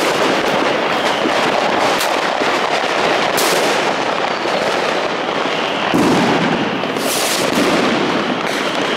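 Dense, continuous crackle of fireworks and firecrackers going off all around, with a few louder bangs standing out.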